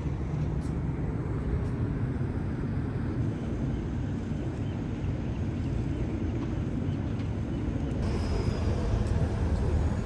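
Steady low rumble of distant city traffic heard outdoors, with no distinct events standing out.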